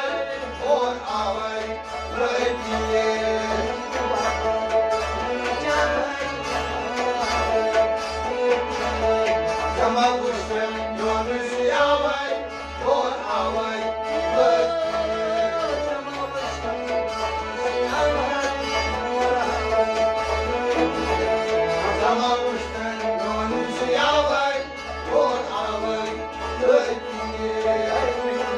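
Small folk ensemble playing: a bowed sarangi and a harmonium carry the melody over a steady low drum beat.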